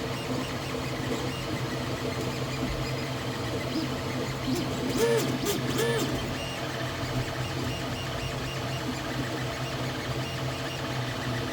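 Small quadcopter's brushless motors buzzing steadily with a mix of tones, with two brief throttle swells that rise and fall in pitch about five and six seconds in.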